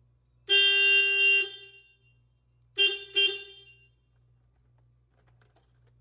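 The horn of a GEM electric car, sounded from its horn button: one honk of about a second, then two short beeps close together.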